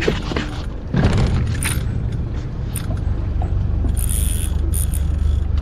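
A boat motor running steadily with a low hum. There are a few knocks near the start and about a second in, and a short hiss around four seconds in.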